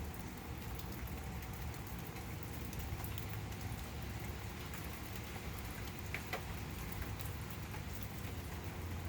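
Heavy rain falling steadily in a thunderstorm, an even hiss of rain, with a couple of sharper taps about six seconds in.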